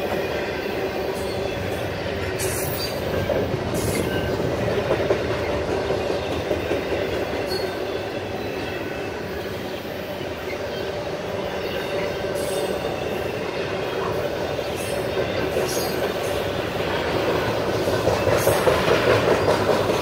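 Double-stack intermodal well cars rolling past: a steady rumble of steel wheels on the rails, with a few sharp clicks along the way and growing louder near the end.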